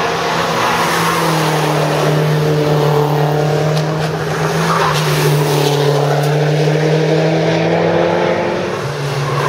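Porsche racing car engine running hard on a race track, a loud continuous note whose pitch steps up and down a few times.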